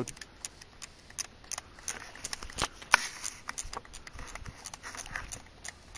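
Irregular clicks and rattles of an airsoft Thompson submachine gun's magazine being handled during a reload, with one sharper snap about three seconds in.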